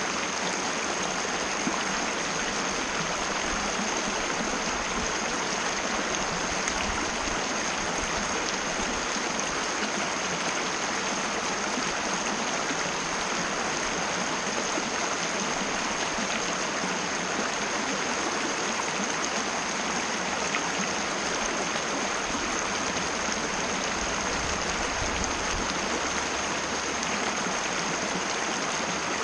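Mountain river running steadily, an even rushing of water with no change in level. A steady high-pitched tone sits above it throughout.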